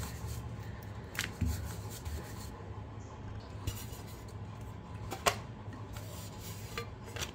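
Wooden rolling pin rubbing as it rolls out roti dough on a countertop, then a few sharp clinks of a steel plate being handled and set down, the loudest about five seconds in.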